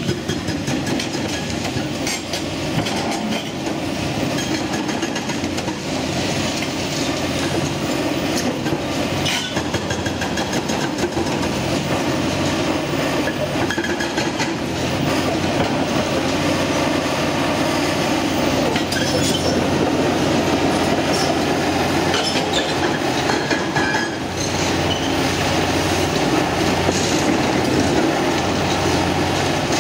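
Hydraulic breaker hammer on a CAT 349E excavator pounding concrete in a fast, continuous rattle, over the excavator's diesel engine running under load.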